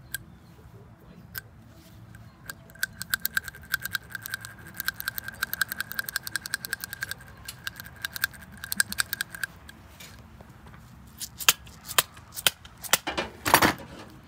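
Rapid metallic clicking from hand tools, with a thin ringing note, from a couple of seconds in until about two-thirds through. It gives way to a few louder, separate clacks and a short metal rattle near the end.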